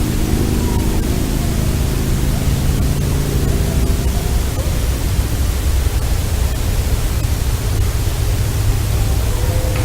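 Loud, steady hiss of a heavily amplified outdoor recording. In the first four seconds a low drone of several steady tones sits under it, then fades. A few faint, short wavering tones come and go, one about half a second in and one near the end.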